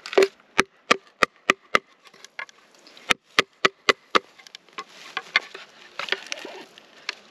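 Bamboo being cut with a knife: sharp hollow knocks of bamboo on bamboo, about three a second, in two runs, then a rasping stretch of the blade working into the wood near the end, notching a bamboo stick.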